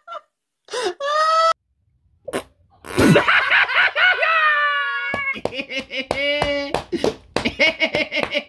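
Men laughing hysterically. A short high wailing laugh comes about a second in, then from about three seconds in loud shrieking laughter that breaks into rapid ha-ha pulses.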